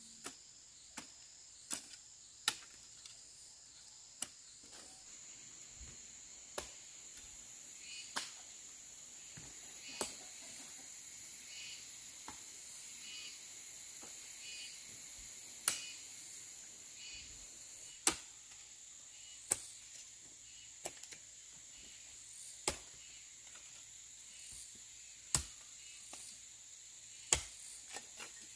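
Irregular sharp chopping strikes, about one every one to three seconds with a longer pause near the middle, over a steady high insect drone and cricket chirping.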